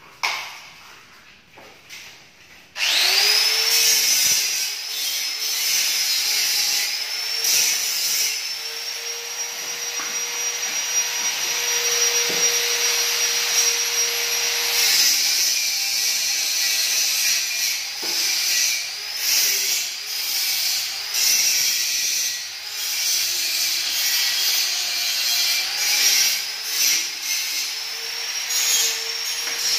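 A brief knock, then a small high-speed electric motor starts about three seconds in with a quick rising whine and runs steadily, its pitch dipping slightly now and then.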